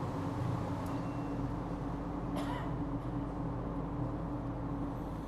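A steady low hum over faint background noise, with a brief faint sound about two and a half seconds in.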